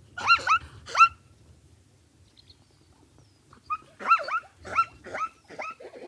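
Plains zebra barking: short, high yelping calls that rise and fall in pitch. Three come in the first second, then after a pause a quicker run of about eight.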